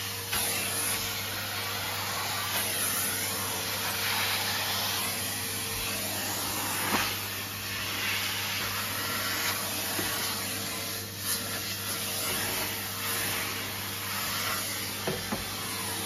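Numatic Henry Xtra cylinder vacuum cleaner running steadily, sucking through its soft dusting brush on the hose, with a few faint knocks against plastic.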